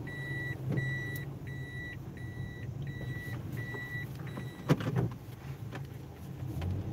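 A car's reverse-gear warning beeper sounds inside the cabin while the car backs up during a turn-around: an evenly spaced high beep, roughly one and a half a second, that stops a little after four seconds in. The engine idles low underneath, and there is a single sharp knock near five seconds in.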